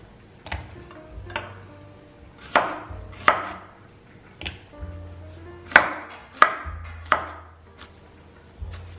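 Chef's knife slicing cucumber and then tomato on a wooden cutting board: about eight sharp, irregularly spaced knocks of the blade striking the board.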